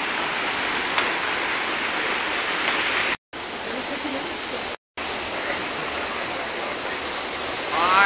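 Rushing water of the Düden River's rapids and waterfall: a loud, steady hiss that drops out briefly twice, about three and five seconds in. A short voice cuts through near the end.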